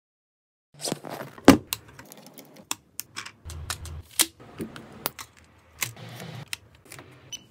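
Camera gear being handled: irregular sharp clicks, snaps and knocks of tripod leg locks and a RØDE shotgun microphone being clipped onto a camera's shoe mount. The clicks start about a second in, and the loudest snap comes about half a second later.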